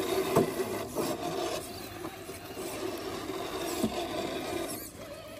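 Electric motor and geared drivetrain of a 1/10-scale RC crawler whirring steadily while it crawls over rock, with rasping scrapes and a few sharp clicks in the first two seconds.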